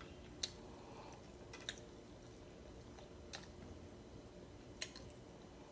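Faint eating sounds of a person chewing food eaten by hand, with four short, sharp mouth clicks spaced about a second and a half apart, over a faint steady hum.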